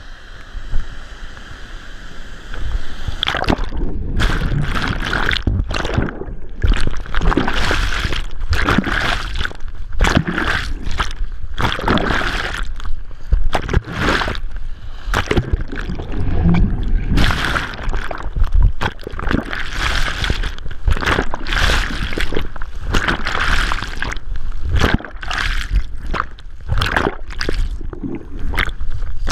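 Surf water churning and splashing around a camera caught in breaking whitewater: quieter lapping at first, then from about three seconds in a continuous run of loud, irregular rushing surges with a deep rumble, partly muffled as the camera goes under.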